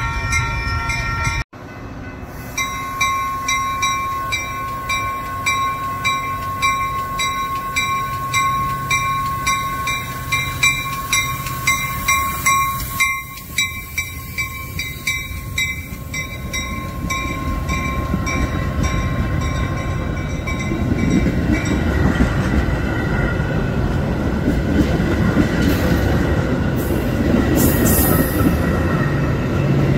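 Metra commuter train passing: its horn chord sounds for about the first second and a half. Then a grade-crossing bell dings in a steady, quick rhythm, fading out past the halfway point as the train's rumble and wheel clatter grow louder in the last third.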